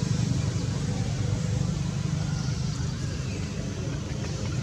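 A deep, steady outdoor rumble with a fainter hiss above it, easing off slightly in the second half, with no distinct events.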